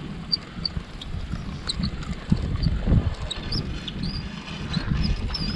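Wind buffeting the microphone in uneven gusts, a low rumble, with a few faint short high chirps.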